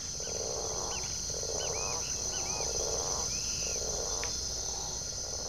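A run of short, rough calls, about one a second, with a few quick high chirps among them, from woolly spider monkeys (muriquis), over a steady high drone of insects.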